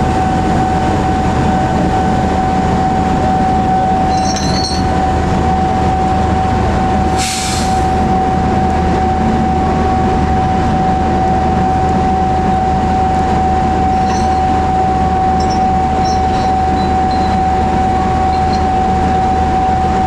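A KAI CC206 diesel-electric locomotive idling at a standstill: a steady, even rumble with a single high whine held throughout. A short hiss sounds about seven seconds in, and there are a few light metallic clinks around four seconds.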